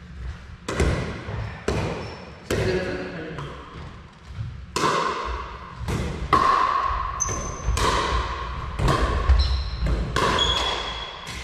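Pickleball rally: paddles striking the hollow plastic ball and the ball bouncing on the wooden floor, about ten sharp pocks at roughly one a second, each echoing in the large hall.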